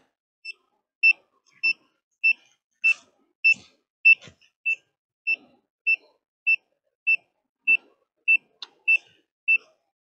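Handheld EMF tester sounding its alarm: short, high electronic beeps repeating steadily about every 0.6 seconds. The meter is picking up the electromagnetic field from overhead power-line pylons.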